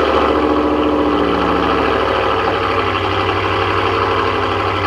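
2020 Ram 1500 Limited with an aftermarket Corsa exhaust, idling through its exhaust tips just after a remote start, settling in the first couple of seconds into a steady idle.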